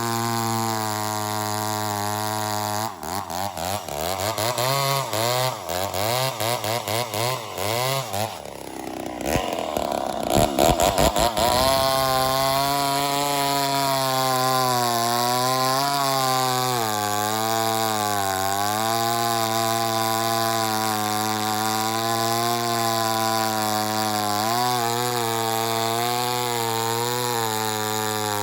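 Ported Poulan 245A two-stroke chainsaw running. Its revs go up and down unevenly for a few seconds, then rise to full throttle, and it holds a steady pitch that dips and recovers as it cuts through hardwood under load.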